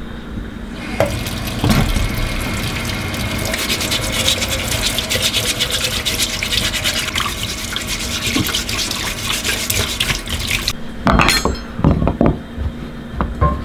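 Kitchen tap running into a stainless steel sink, with hands rubbing produce under the stream. The water stops suddenly near the end, followed by a few knocks of a knife cutting carrots on a wooden cutting board.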